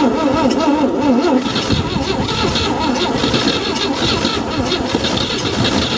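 A Chevy 235 'stovebolt' inline-six cranking over on its starter, with a wavering whine through the first second and a half. The engine is a long-dormant one being hand-choked at the carburetor while it cranks.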